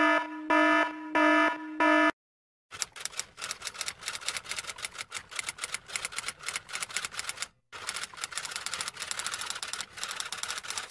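An alarm beeps four times, then a typewriter takes over: a fast, irregular run of keystrokes that breaks off briefly once partway through.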